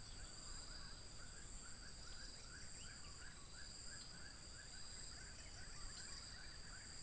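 Steady high-pitched insect chorus, with a short chirping call repeating about twice a second underneath it.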